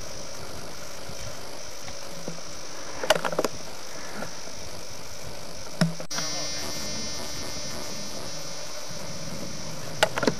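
Steady hiss of an outdoor camcorder recording, with a few short clicks and knocks about three seconds in, near six seconds and near the end. After a cut about six seconds in, a steady buzzing tone joins the hiss for about three seconds.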